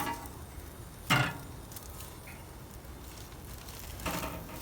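Charcoal grill with vegetables on it, a faint steady sizzle and crackle of the coals. A sharp click comes at the start and a louder short knock about a second in.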